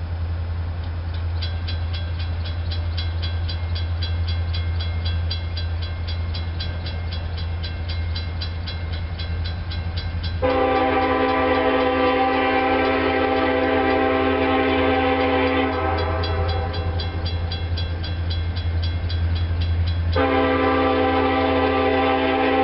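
Grade-crossing warning bell ringing with rapid, evenly repeating dings from about a second in, over a steady low rumble. A Norfolk Southern EMD SD70M-2 freight locomotive's multi-chime air horn blows two long blasts, one from about halfway for around five seconds and another starting near the end: the whistle signal for the approaching crossing.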